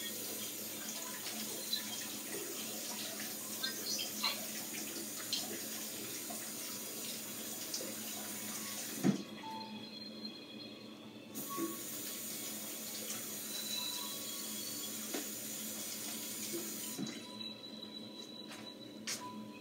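Tap water running into a sink as a dropped piece of pineapple is rinsed, with small knocks of handling. The water is shut off with a knock about nine seconds in, turned back on a couple of seconds later, and shut off again near the end.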